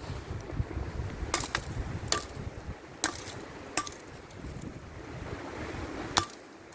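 A low, uneven rumble of wind on the microphone, with about seven sharp knocks, several of them ringing briefly, the last near the end.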